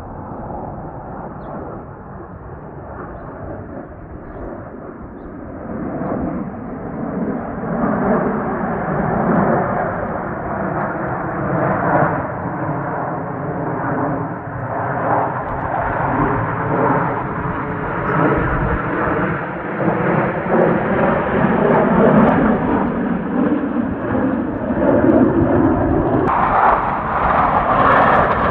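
Jet engines of Blue Angels F/A-18 Super Hornets running at air-show power, growing steadily louder as the jets close in and pass, with a slow sweeping, phasing whoosh in the roar.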